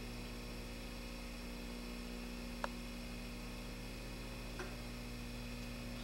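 Low, steady electrical mains hum, with a faint click about two and a half seconds in and another, fainter one near the end.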